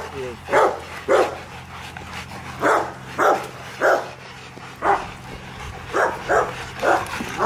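Young Rottweilers barking in rough play, about ten short barks at uneven gaps of roughly half a second to a second.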